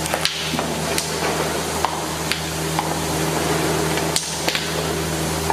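Almonds sizzling in hot oil in an iron kadai, with a perforated metal ladle clinking and scraping against the pan several times as they are scooped out. A steady low hum runs underneath.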